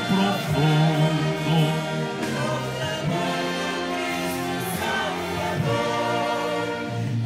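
Church orchestra of strings and woodwinds playing a hymn in slow sustained chords, with a man's voice singing over it, most clearly in the first few seconds.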